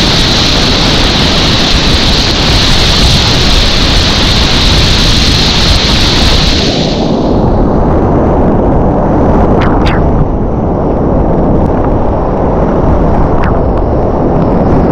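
Loud, steady rushing of whitewater rapids around a kayak. About halfway through the high hiss fades, leaving a duller rush, with a few brief sharp sounds in the second half.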